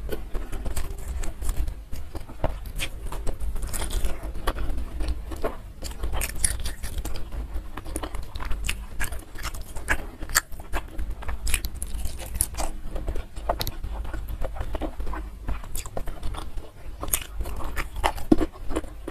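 Close-miked chewing with frequent sharp, irregular crunches and mouth clicks: a person eating rice, fried tofu and raw vegetables with sambal by hand.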